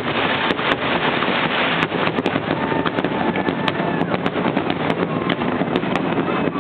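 Fireworks finale: rapid, continuous bangs and crackling from many shells bursting at once, with no break.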